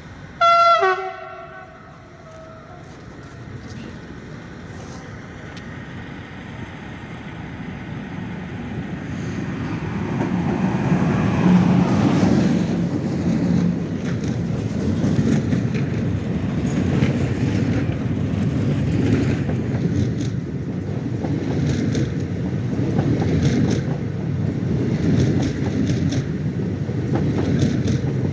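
A locomotive sounds a short horn blast about a second in. Then a long container freight train approaches and passes close by, its wagon wheels rumbling and clicking over the rail joints. The rumble grows louder from about eight seconds in and then holds steady.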